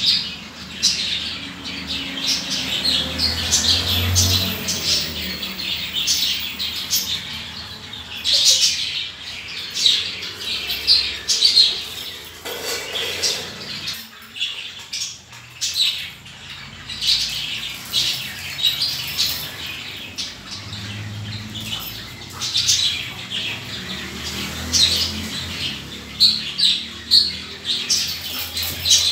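Birds chirping and squawking in quick, short, high calls, repeated in clusters throughout.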